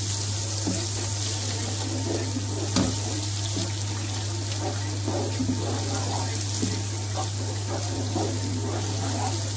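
Fried onions sizzling steadily in hot oil in a pot while a wooden spatula stirs them, with small scrapes and a sharp knock about three seconds in. A steady low hum runs underneath.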